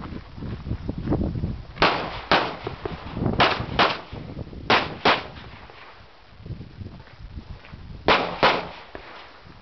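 Handgun shots fired in pairs: four double taps, the two shots of each pair about half a second apart, with pauses of one to three seconds between pairs.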